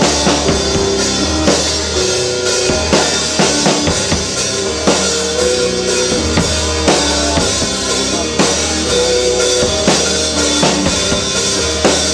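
Live band playing: a drum kit keeps a steady beat, about two strikes a second, under held keyboard and violin notes and a deep sustained bass.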